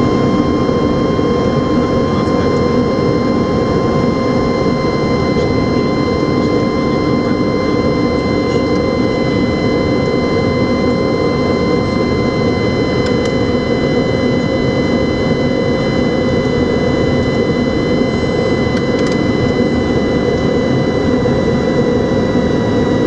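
Cockpit noise of the Antonov An-225 Mriya in flight: a steady rush of airflow and its six D-18T turbofan engines, with thin, steady whining tones above it.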